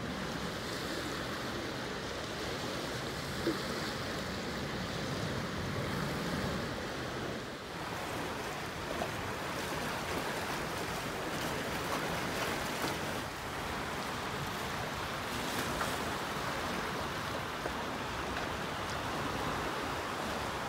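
Steady wash of lake water lapping at the shore, with some wind on the microphone.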